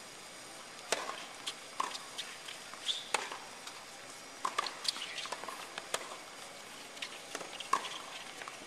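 Tennis rally on a hard court: a string of sharp pops of the ball off the racquet strings and bouncing on the court, starting about a second in.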